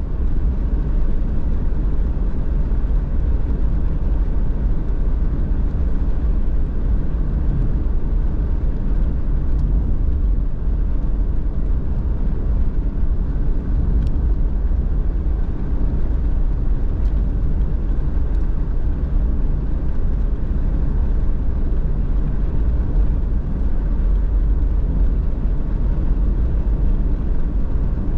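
Car driving along a road at steady speed: an even low rumble of engine and tyre road noise.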